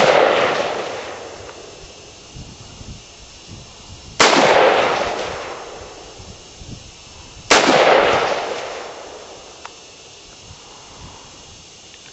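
Bushmaster ACR rifle fired at a distant steel plate: the trailing echo of one shot, then two single shots about three seconds apart, each report dying away over about two seconds.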